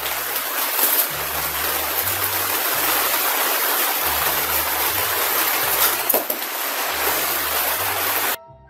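Heavy rain falling on a plastic tarp roof, a loud steady hiss that cuts off suddenly near the end.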